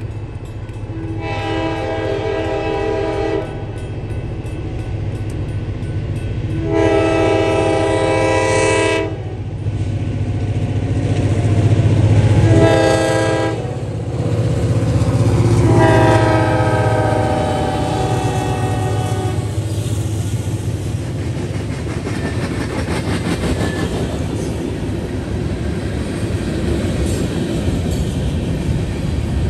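Vermont Railway diesel freight locomotive sounding its air horn in the grade-crossing pattern of two long blasts, one short and one long, over the low rumble of its engine as it passes close by. After that, the freight cars roll past with a steady rattle of wheels on rails.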